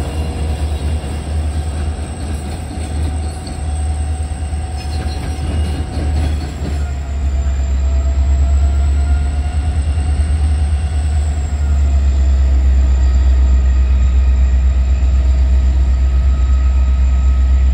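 EMD SD40-2 diesel-electric locomotives running, their 3,000 hp two-stroke EMD 645 engines giving a deep, steady rumble that grows louder around the middle and again about two-thirds in. A thin high whine drifts slightly in pitch over it.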